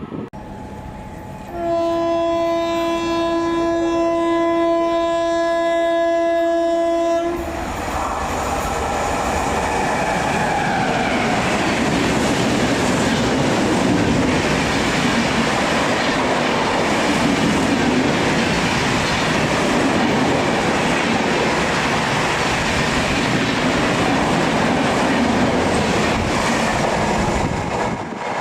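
Express train's horn sounding one long steady blast of about six seconds. The train then rushes past at speed, its wheels clattering on the rails, with the noise easing off near the end.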